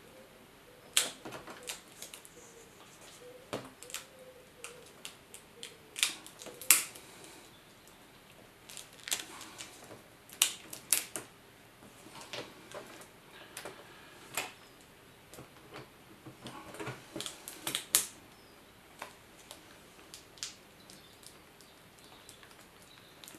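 Irregular sharp clicks and light taps of small plastic laptop parts and cables being handled and fitted back together.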